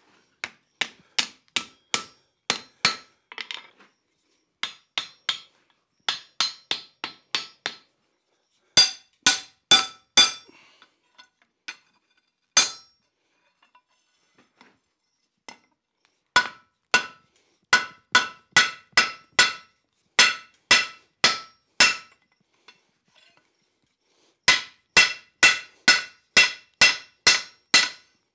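Hand hammer striking a glowing iron bar on an anvil: runs of steady blows, about two a second, each with a short metallic ring, broken by brief pauses while the work is turned and repositioned.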